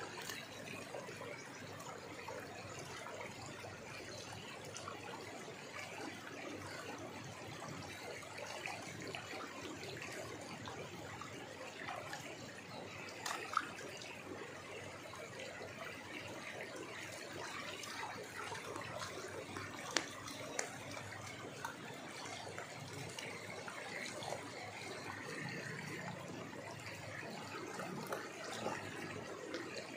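Water sloshing and trickling in a wooden gold pan as it is swirled and dipped in shallow river water, washing the gravel down to black sand. A few sharp clicks sound about halfway through.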